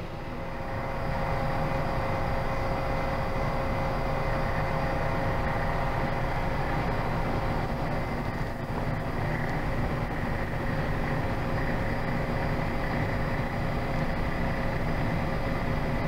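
Refrigeration system of a VirTis Advantage XL-70 freeze dryer running steadily, cooling the condenser down to temperature. It comes up over the first second or so, then holds as an even hum with a few steady tones.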